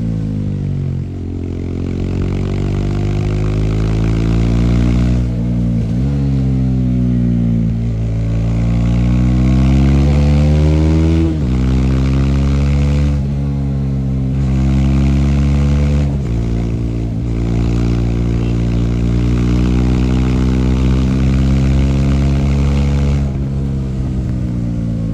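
Bajaj Dominar 400's single-cylinder engine pulling under way. Its pitch climbs as it accelerates and drops sharply at each gear change, about five times.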